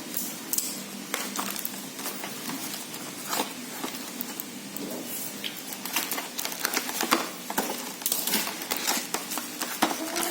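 A parcel's packaging crinkling and rustling as it is handled and opened, with irregular clicks and scrapes that come more thickly in the second half.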